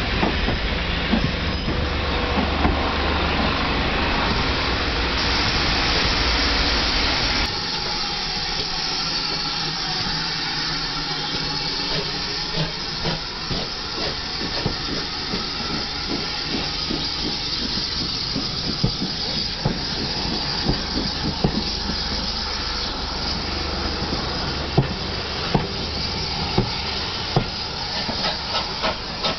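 Ex-GWR 57xx pannier tank L.92 pulling its train of coaches past a platform. Steam hisses, and the wheels click over the rail joints, about one click a second at first and faster towards the end as the train gathers speed. Before this, about 7 seconds of a train's steady rolling rumble end suddenly.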